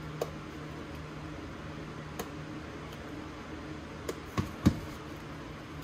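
A spoon knocking a few times against the plastic tub and ceramic dish while pudding is scooped and spread, the loudest knock near the end, over a steady low hum.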